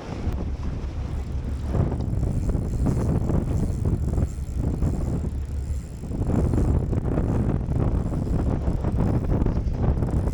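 Strong wind buffeting the microphone on a boat, a low rushing noise that rises and falls in gusts and eases briefly about six seconds in.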